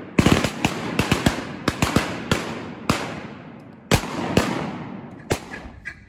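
Volley of shotgun fire from several hunters' semi-automatic shotguns: a rapid, overlapping burst of many shots in the first two seconds, then single shots spaced further apart, the last about five seconds in. Each shot has a long echoing tail.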